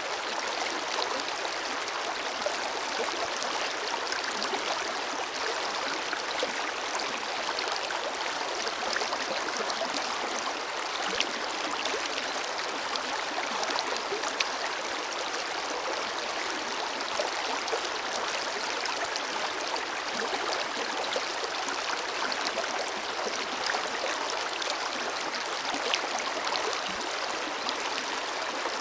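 Forest river flowing steadily over rocks, an even rush of water with small splashes and gurgles scattered through it.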